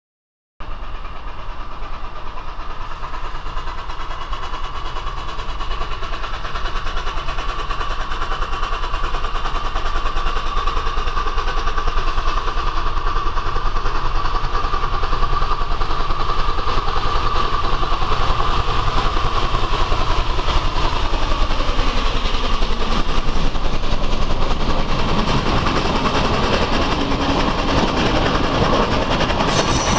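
ČSD class 556.0 'Štokr' 2-10-0 steam locomotive working a passenger train, growing steadily louder as it approaches and runs past close by, with a tone falling in pitch as it nears.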